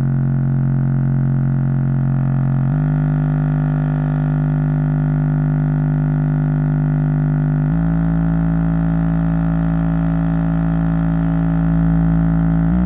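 Pyle Power 6.5-inch dual-voice-coil subwoofer running free air, with no enclosure, playing a steady low bass test tone that steps up in pitch twice, about three and about eight seconds in, with strong overtones.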